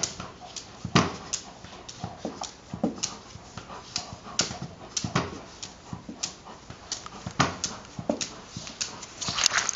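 Irish Setter pawing and scrabbling at a soccer ball wedged under a cart: a run of irregular knocks, scrapes and clicks, with a few heavier thumps.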